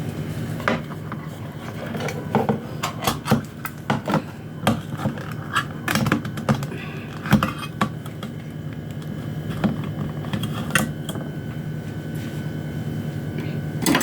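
Irregular metallic clicks, taps and scrapes of a utensil working at a stiff tin of sardines, over a steady low hum.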